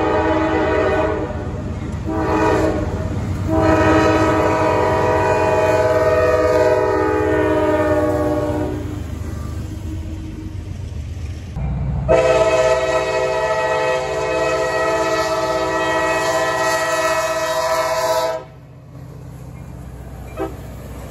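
Freight diesel locomotive air horns sounding over the rumble of passing trains: a few broken blasts and then a long one whose pitch slides down as the locomotive passes, then after a few seconds of rumble another long blast that cuts off suddenly.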